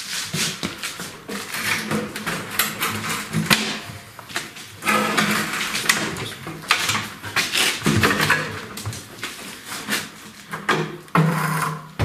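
Heavy stainless-steel washing machine tub being worked out of its steel cabinet frame: irregular knocks, clunks and scraping of metal on metal as it is lifted and shifted.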